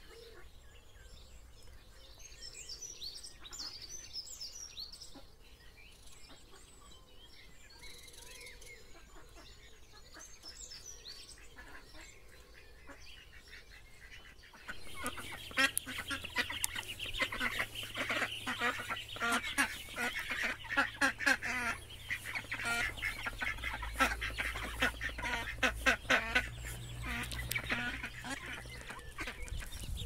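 Ducklings peeping: faint, scattered chirps at first, then about halfway in a much louder, dense chorus of rapid high peeps from many ducklings at once.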